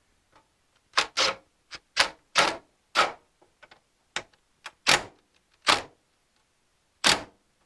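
About a dozen sharp clacks and knocks at irregular intervals as a self-tapping screw is driven through the fender-well sheet metal to fasten the Hurst Roll Control.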